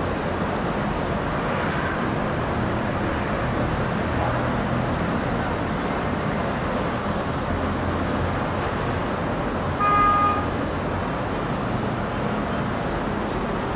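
Steady hum of distant city traffic, with one short horn toot about ten seconds in.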